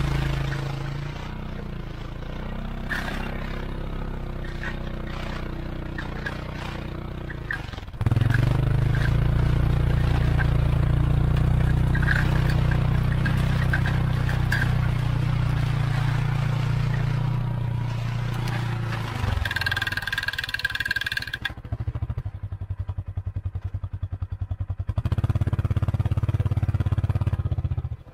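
Polaris Ranger UTV engine running under load as it pulls a box blade with its ripper spikes lowered, the spikes and blade scraping through soil, sticks and roots with scattered clatter. The engine picks up about eight seconds in and eases off after about nineteen seconds. A brief high squeal comes about twenty seconds in.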